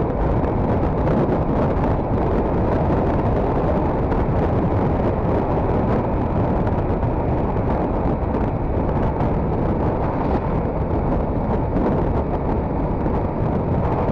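Steady wind rush on the microphone of a KTM RC 390 motorcycle cruising at about 70 km/h, mixed with the bike's engine and road noise.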